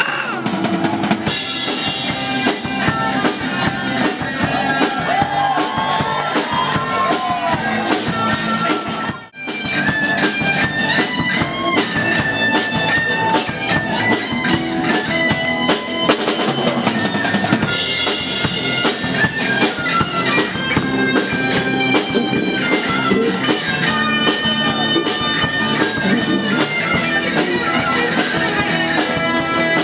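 Live rock band playing an instrumental passage: a drum kit keeps a steady driving beat under electric and acoustic guitars. The playing stops very briefly about nine seconds in, then the band comes straight back in.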